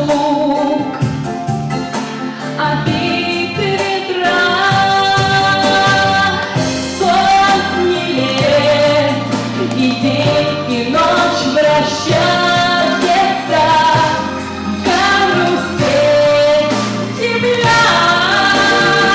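Female voice singing a slow melody over a pop backing track.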